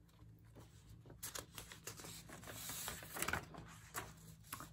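Quiet handling noises: scattered light clicks and soft rustling of paper sheets being moved.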